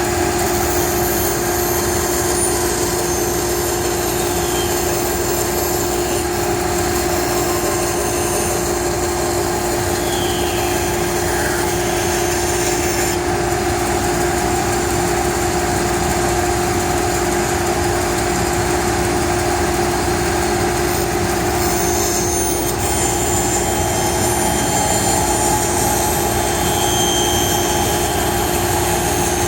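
Band saw running with a steady hum while its blade cuts through a piece of wood along a marked pattern.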